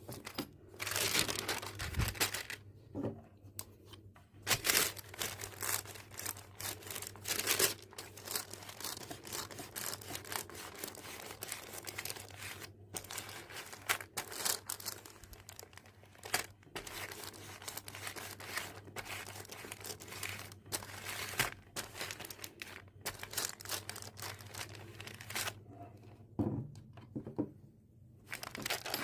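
Parchment paper crinkling and rustling as it is handled and pressed, in irregular bursts of crackle, over a faint steady low hum.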